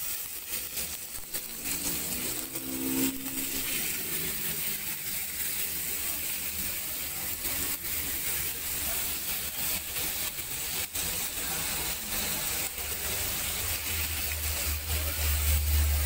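Marinated beef slices frying in hot oil in a wok, a steady sizzle, with a low rumble rising near the end.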